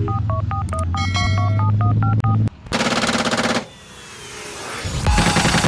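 A heavy engine drone with a quick run of telephone keypad beeps over it stops suddenly at about two and a half seconds. About a second-long burst of rapid machine-gun fire follows, and rapid low thuds begin near the end.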